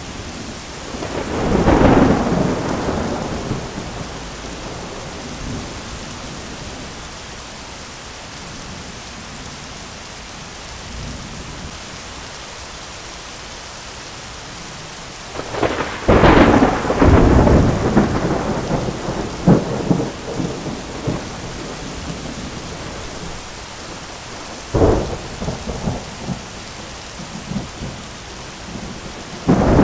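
A thunderstorm: steady heavy rain hissing, with thunder rolling in several times. There is a rumble about two seconds in, a long crackling roll from about halfway through, a short sharp clap a few seconds later, and another loud rumble right at the end.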